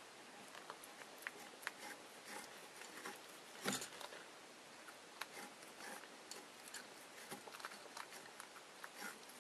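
A cat chewing and biting on a thin cord, heard as faint, irregular clicks and crunches. One louder click comes a little over three and a half seconds in.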